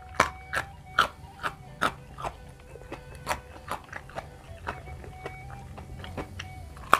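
Close-miked crunchy chewing of raw vegetables, a sharp crunch about twice a second, over soft background music with held notes.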